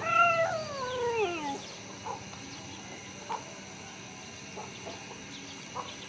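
A rooster crows once at the start, the call rising briefly and then falling in pitch over about a second and a half. A few short, faint calls follow.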